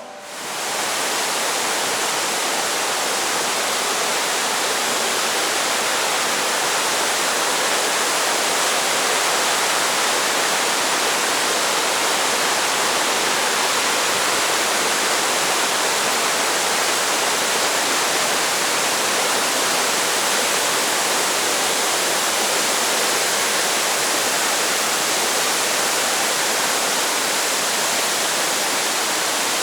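Waterfall, a steady, loud rush of falling water that begins abruptly and stays even throughout.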